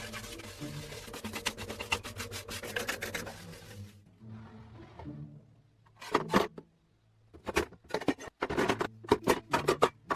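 Rapid abrasive rubbing strokes on rusty metal, like sanding or brushing, for about four seconds, stopping suddenly. After a short lull comes a run of short, sharp scraping strokes, with quiet background music underneath.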